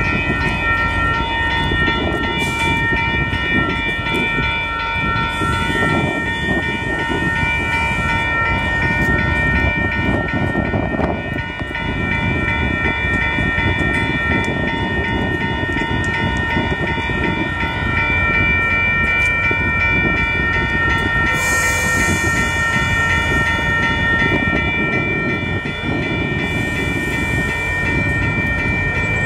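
WES commuter diesel railcars running through the station with a steady low rumble and some wheel clatter. Over it, a level-crossing bell rings steadily throughout, heard as several high tones held together.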